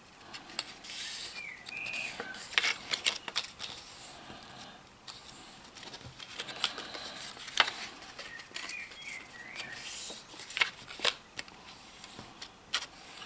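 Thin printed card being folded by hand along scored lines, with crisp crackling clicks as the creases snap over and paper rustling as it is turned and pressed flat.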